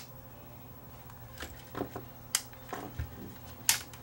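Plastic case of a MUSTOOL IR502 battery tester being pried open by hand: a series of short sharp plastic clicks, about six, the loudest near the end.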